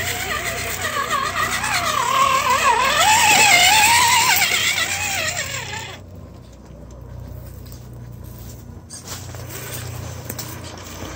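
Electric motor and gearbox whine of a radio-controlled scale rock crawler, its pitch wavering up and down with the throttle as it crawls over rock. It grows loudest a few seconds in, then stops abruptly about six seconds in, leaving only a faint sound.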